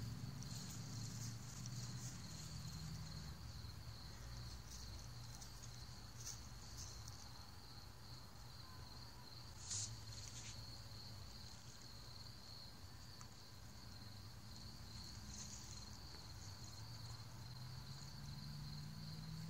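Night crickets chirping in a continuous high, finely pulsing trill over a low steady hum, with one brief click about ten seconds in.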